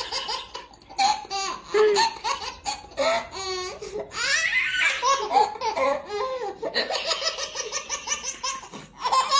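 A baby laughing hard, in bursts of quick pulsing giggles with a high squeal about four seconds in, and a woman laughing along.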